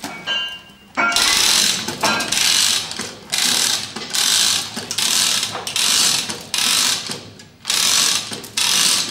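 Hand-operated chain block being hauled to lift a locomotive buffer beam. The hand chain is pulled in a steady rhythm, and each stroke gives a half-second burst of chain rattle and ratchet clicking, about one and a half strokes a second. The hauling starts about a second in.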